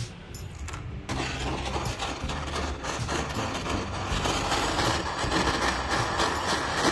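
Gas torch flame hissing steadily as it heats a small gold charm for soldering. It starts about a second in and grows louder.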